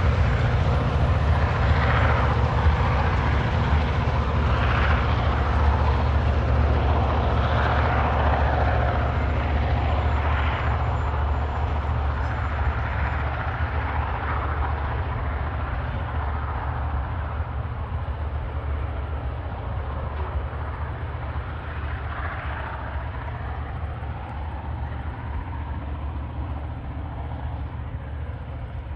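TasRail TR class diesel-electric locomotives working hard to haul a coal train up a grade: a deep, steady engine rumble that slowly fades as the locomotives draw away.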